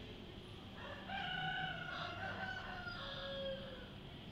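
A rooster crowing once: a single long crow of nearly three seconds that drops in pitch at the end.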